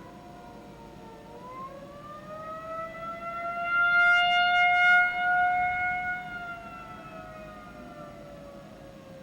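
Outdoor civil defense warning siren wailing: its pitch falls, rises again and holds high, then falls away. It swells loudest in the middle of the wail.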